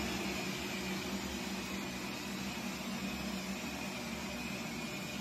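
Fresh-air supply pump running steadily, a constant hum with rushing air through the breathing hose of a supplied-air mask.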